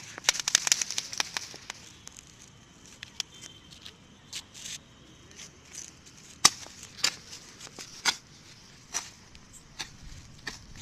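Small crackling ground firecrackers going off: a fast rattle of sharp pops for about the first second and a half, then single sharp cracks at irregular gaps of roughly half a second to a second and a half.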